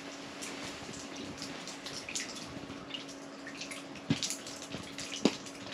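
Small drips and light splashing of water at an open ice-fishing hole as two rods are jigged, over a steady low hum. Two sharp knocks stand out, about four and five seconds in.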